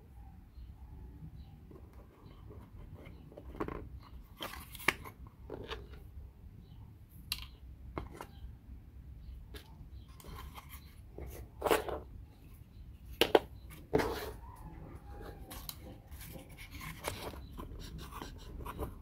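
Small wooden puzzle parts being handled and fitted together: irregular light clicks, taps and rustles, with a few sharper knocks about two-thirds of the way through.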